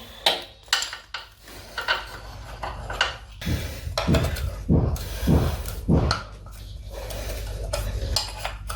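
Metal tools and parts clinking, knocking and scraping as oil drain plugs are unscrewed with a wrench under a motorcycle, with a steadier hiss building in the last few seconds.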